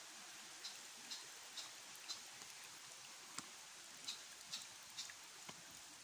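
Footsteps climbing a stone and leaf-litter trail: a short crunch about twice a second, with a pause near the middle, over a faint steady hiss.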